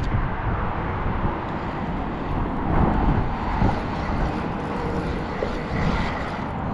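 Wind buffeting the microphone: a steady, gusting rumble with no clear tone.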